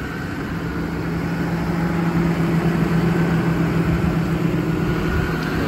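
Diesel engine of a Ram 5500, a 6.7 Cummins, idling: a steady hum that comes in about half a second in and grows gradually louder.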